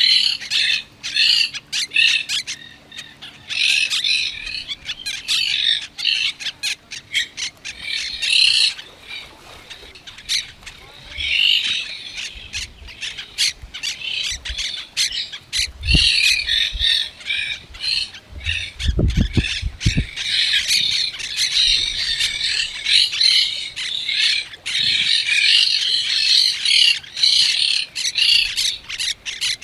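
Parrots squawking and other birds chattering in dense bursts of harsh, rapid calls, with brief lulls. A few low thuds come about halfway through.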